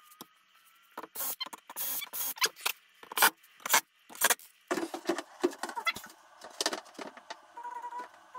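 DeWalt cordless drill-driver driving screws through a metal bracket into a kitchen door panel. It sounds as a run of short bursts, with sharp clicks and rattles of screws and metal.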